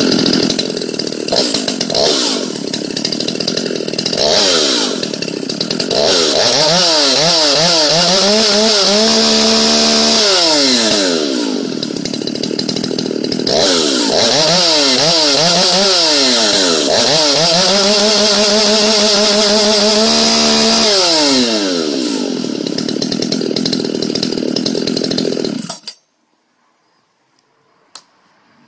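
Dolmar 7900 two-stroke chainsaw with a custom aftermarket Wojo muffler, revved with no load: idling with short throttle blips, then twice revved quickly up and down and held at high revs before dropping back to idle. Near the end the engine is switched off and cuts out abruptly.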